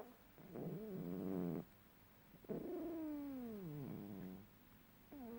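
A sleeping cat snoring: two drawn-out, pitched snores with a gap between them, the second sliding steadily down in pitch, and another starting near the end.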